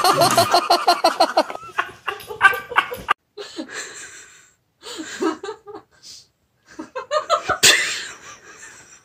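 People laughing: a run of laughter at the start, then shorter fits of giggling broken by pauses.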